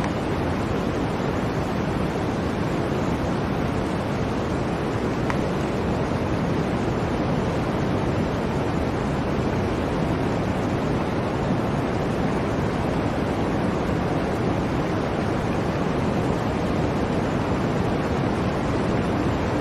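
Blizzard wind blowing in a steady, unbroken rush.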